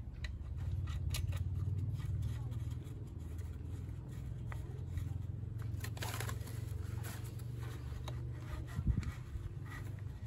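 Small clicks and scrapes of gloved hands working at a scooter's gear-case drain bolt, with a sharper knock about nine seconds in, over a steady low hum.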